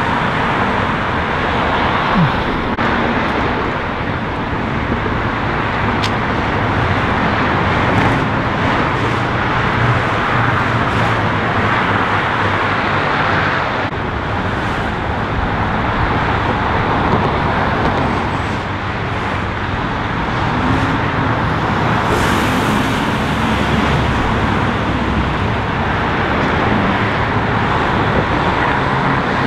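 Steady freeway traffic noise, with cars passing and the sound swelling and easing a little as they go by.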